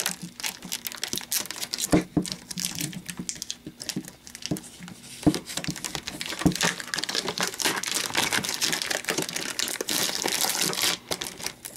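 Plastic wrap being pulled and crumpled off a trading-card tin: continuous crinkling, with a few sharp clicks.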